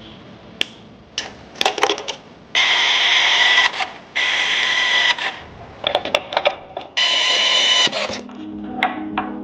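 Workshop tool noise: three bursts of a power tool, each about a second long, with sharp metal clicks and knocks of parts being handled between them. Background music comes in near the end.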